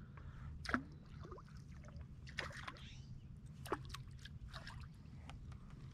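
Faint small splashes and trickling as a salmon spinner is worked through the water at the surface, a few separate splashes over a low steady background; he is checking that the spinner blade still turns.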